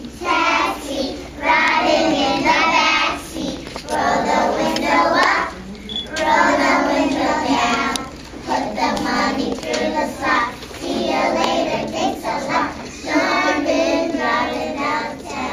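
A group of young children singing together, phrase by phrase with short breaks between the lines.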